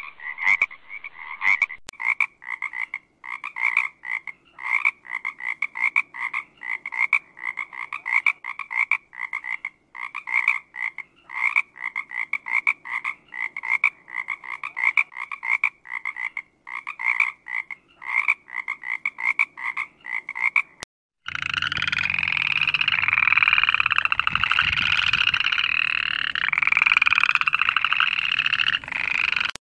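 Frogs croaking: short two-toned croaks repeated two or three times a second. About 21 seconds in it cuts to a dense, continuous chorus of many frogs calling over one another.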